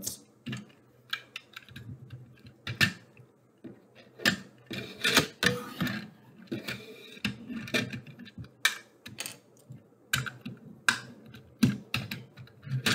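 Small LEGO vehicle being handled and pushed back and forth on a paper-covered table: irregular plastic clicks and clacks of the bricks, with a few short rolling scrapes of its small rubber-tyred wheels.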